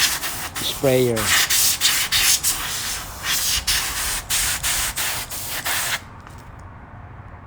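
Compressed air from an air compressor's blow nozzle hissing in quick repeated bursts as it blows dust out of a desk fan, then cutting off abruptly about six seconds in.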